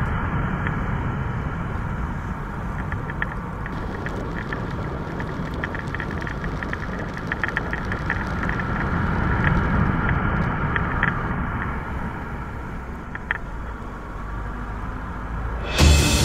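Motorcycle engine running steadily while riding at low speed, mixed with wind and road noise and scattered faint ticks. Music cuts in loudly near the end.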